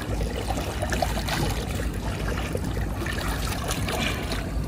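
Lake water splashing and lapping around a Mekong giant catfish as it shifts in an angler's arms, a steady run of small splashes.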